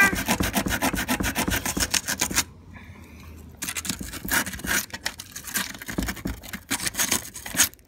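Sandpaper rubbed quickly back and forth on the metal terminal of a glass-ceramic hob's wire connection, polishing it bright so a loose, poorly contacting joint makes contact again. Fast, even strokes stop about two and a half seconds in, then more irregular rubbing follows after a short pause.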